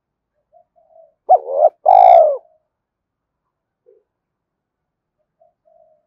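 Spotted dove cooing close to the microphone: a few soft low notes, then a loud two-part coo about a second and a half in, the second part longer, followed by a few faint notes.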